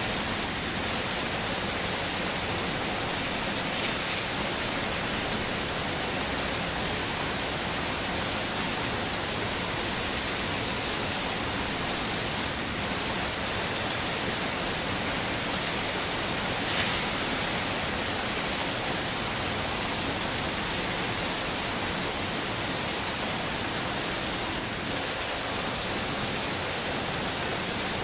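Heavy rain falling steadily, an even hiss. It briefly thins in the high hiss three times, about twelve seconds apart.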